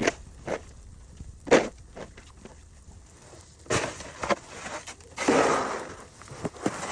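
Snow shovel breaking into an icy crust on deep snow: a few sharp hits in the first second or two, then crunching, scraping strokes, the longest about five seconds in.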